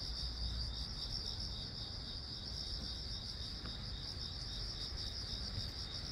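A chorus of crickets chirring steadily in one dense high band, over a low rumble.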